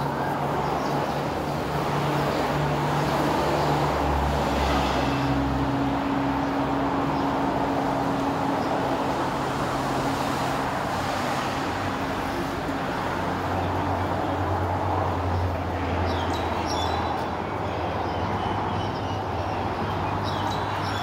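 Steady road traffic: vehicles running on a road below, a continuous rush with a low engine hum that shifts in pitch as different vehicles pass.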